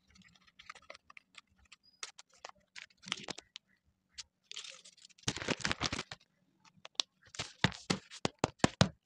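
Paper being handled: rustling and crinkling, with dense clusters of sharp crackles about halfway through and again near the end.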